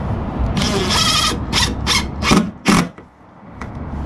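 Power drill-driver driving a screw into a wooden floor board: one longer run of the motor, then four short trigger bursts as the screw head is seated flush and countersunk.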